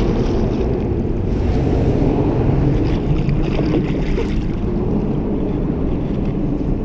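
Steady wind buffeting the microphone on an open boat, with water splashing beside the hull as something is thrown in, the splashing most noticeable about three to four seconds in.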